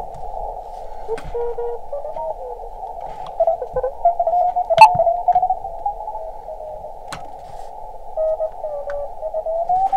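Elecraft KX2 receiver audio in CW mode: band hiss through a narrow filter, with Morse code tones that slide in pitch as the receiver is tuned across the contest band. A sharp click about five seconds in is the loudest sound, with a few fainter clicks around it.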